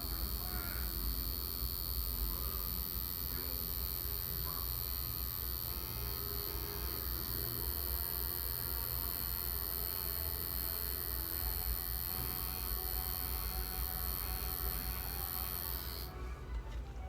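Dragonhawk tattoo machine buzzing steadily while lining practice skin, its buzz dropping away for about a second near the end.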